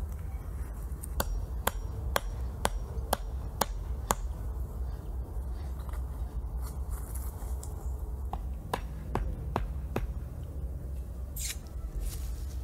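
Sharp knocks in a steady rhythm of about two a second, a run of seven and then, after a pause, four more, over a steady low rumble. A short rustle comes near the end.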